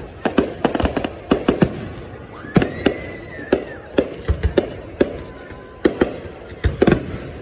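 Fireworks finale: a rapid, uneven string of sharp bangs and cracks, several a second, with a short whistle that rises and falls about three seconds in.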